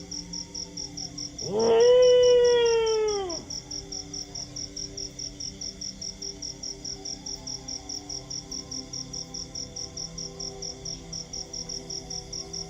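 A dog gives one long howl about a second and a half in, rising and then falling in pitch, with fainter howls before and after it. Underneath, a high, even chirping pulses about five times a second throughout.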